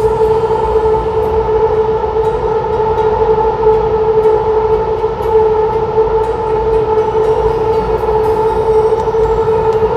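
Taichung Metro Green Line electric train running at steady speed: a low rumble with a steady, unchanging whine on top.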